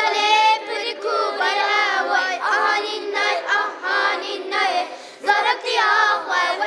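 A group of children singing a folk song together in rehearsal, with a short pause about five seconds in.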